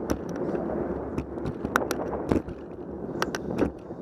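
Bicycle rolling along a paved path, heard from a bike-mounted camera: steady wind on the microphone and tyre noise, with several sharp clicks and rattles.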